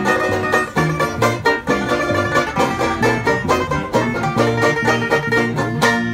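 Two banjos picking fast rolls over a plucked upright bass in an upbeat bluegrass-style tune. Near the end they strike a last chord that rings on.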